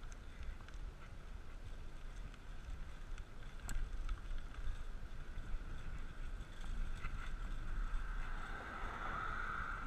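Wind rumbling on the microphone over rolling road noise from a bicycle on 700x35 Specialized Nimbus Armadillo tyres. A steady hiss grows louder near the end, and there are a few faint clicks.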